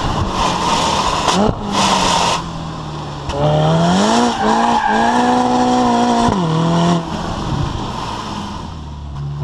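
Ferrari California T's twin-turbo V8 exhaust heard right at the tailpipes: the note climbs under throttle with brief dips at gear changes, holds steady, then drops away as the car lifts off and coasts. There is a short rush of noise about two seconds in.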